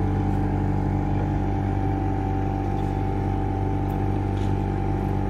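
Motorboat engine running steadily, a constant hum with no change in speed.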